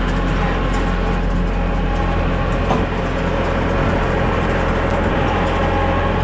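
A heavy engine running steadily at a constant pitch, with a deep drone.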